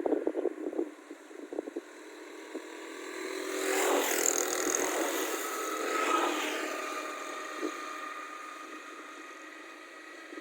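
A motor vehicle's engine passing by, swelling to a peak about four seconds in and again near six seconds, then slowly fading away. Brief crackles in the first two seconds.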